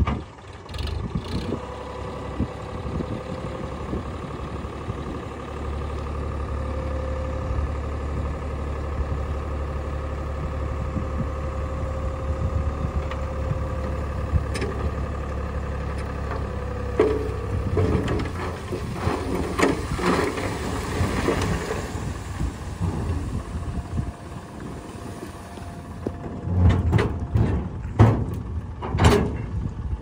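Sonalika 42 DI RX tractor engine running steadily while its hydraulics tip the loaded trolley, with a steady whine as the body lifts. From about 17 seconds in, the load of soil slides out with a clattering rumble, and a few sharp knocks come near the end.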